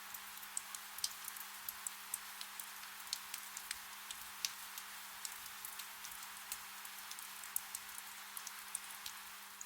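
Soft rain: a steady hiss with many scattered, distinct drop ticks at irregular moments. A faint steady low hum runs underneath.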